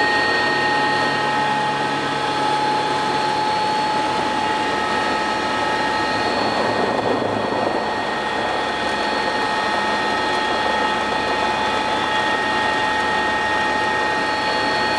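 Helicopter engines and rotor heard from inside the cockpit during take-off: a steady high whine over a constant rushing drone.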